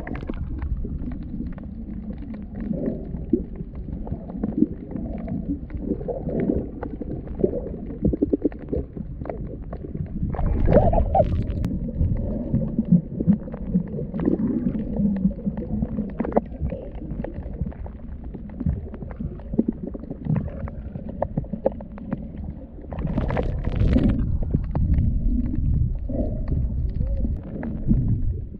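Muffled underwater rumbling and gurgling of water moving around a submerged camera, uneven throughout, with louder surges about a third of the way through and again near the end.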